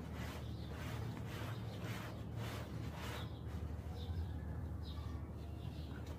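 Quiet handling of a wooden hand plane while glue is squeezed from a plastic bottle into its joints, over a steady low hum, with a few faint high chirps now and then.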